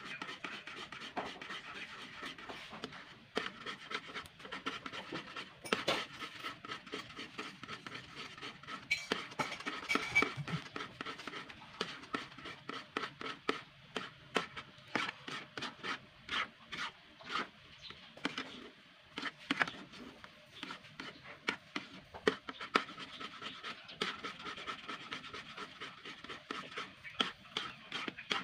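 Spatula scraping and stirring through a thick, cooking cornstarch and coconut-milk pudding mixture in a metal pan, in quick repeated strokes. The batter is thickening as it cooks.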